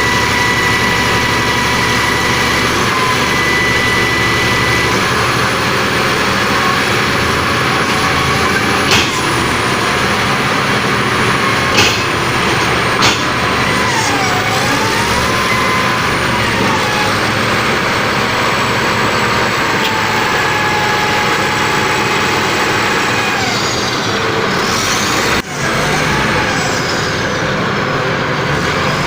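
Bulldozer running steadily, its engine noise overlaid by a whine that drifts up and down in pitch, with a few sharp knocks scattered through.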